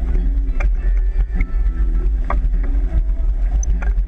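Wind buffeting the microphone and water rushing along the hull of an O'Day 25 sailboat heeled under sail at about 6 to 7 knots, a steady heavy rumble with a few sharp knocks and slaps.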